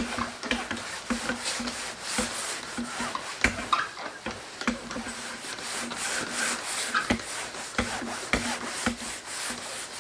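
Hand-rubbing of rubbing compound over a sanded headlight lens with an applicator pad: repeated scratchy rubbing strokes with small ticks, the compound being spread evenly to clear the haze left by sanding.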